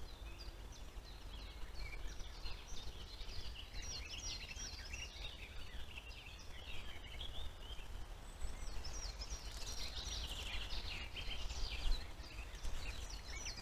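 Several songbirds singing at once, a busy chorus of short repeated chirps and trills, over a faint steady low rumble.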